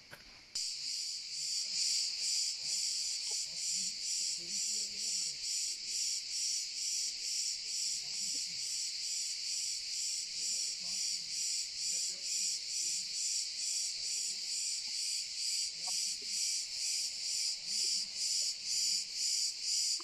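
Cicadas buzzing loudly in a shrill, pulsing chorus, about two or three pulses a second, starting suddenly about half a second in and cutting off suddenly at the end.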